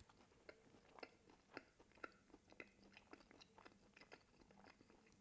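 Faint chewing of a mouthful of baked pork and apple pasty, with crisp little clicks from the shortcrust pastry, about two or three a second.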